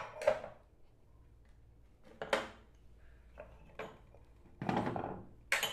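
Kitchen handling sounds as green chillies are added to a clay cooking pot of liver, garlic and shallots: about half a dozen short knocks and rustles, spread through the few seconds, the sharpest one right at the start.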